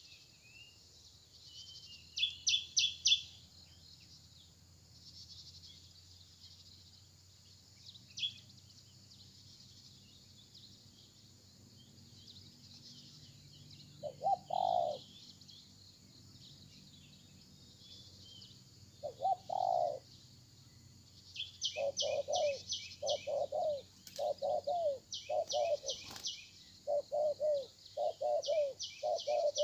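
Spotted doves cooing: two single low coos near the middle, then a run of regularly repeated coos through the last third. Small birds chirp in quick high-pitched bursts near the start and again alongside the coos.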